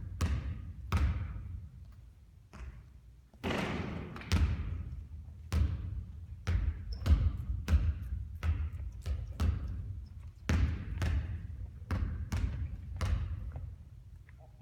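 Basketball bouncing on a gym court: a string of sharp thuds, about one or two a second, each with a short echo.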